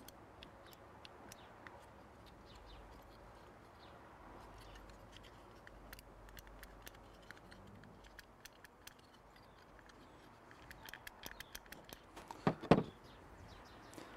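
Faint clicks and taps of small plastic parts being handled: the switch housing of an electric pressure washer, with its cam and lever, being fitted together. Near the end, a run of small ticks and then two louder knocks as the parts are set down on the table.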